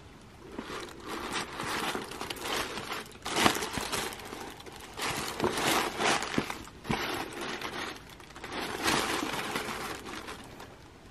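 Tissue paper rustling and crinkling as a leather backpack is handled in its box, with a few sharper knocks about a third of the way in and again past halfway.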